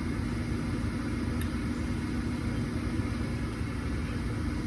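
Gas furnace's draft inducer motor running with a steady hum during the ignition sequence. The furnace gets no flame because of a failed gas valve.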